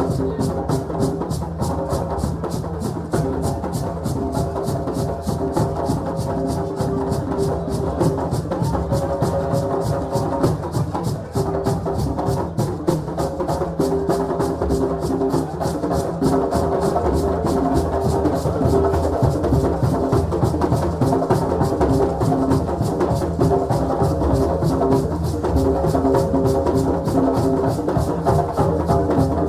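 Ivorian celebration drumming: several drums struck in a fast, dense rhythm, with held pitched tones sounding over the beat.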